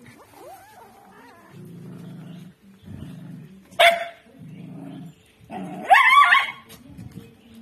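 Dog growling in short low rumbles while fighting over a bone, with a sharp bark a little before four seconds in and a loud, drawn-out cry around six seconds.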